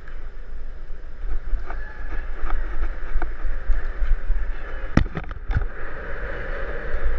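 Wind buffeting a helmet-mounted camera's microphone while riding fast across concrete, a steady rushing rumble, with a few sharp knocks about five seconds in.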